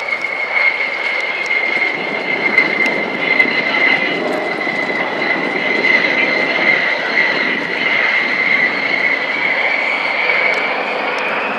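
Fairchild Republic A-10 Thunderbolt II's twin General Electric TF34 turbofans flying past: a steady high-pitched whine over a broad jet rush, the whine rising slightly in pitch near the end.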